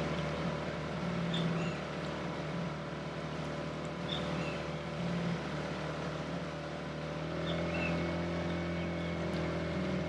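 Small outboard motor on an inflatable dinghy running steadily, with a slight change in its note about seven seconds in. Three faint short high chirps sound over it.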